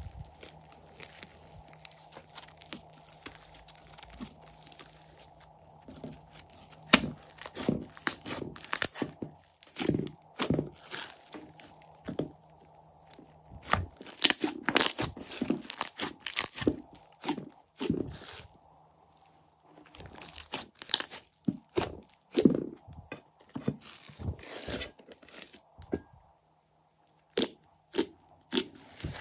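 Hands squeezing and kneading crunchy slime full of small beads, giving irregular crackles, crunches and sticky pops. There are a few sharp separate pops near the end as fingers press into the slime.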